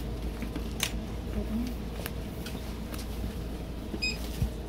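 Steady shop background hum with handling clicks and a low knock, then two short high electronic beeps near the end.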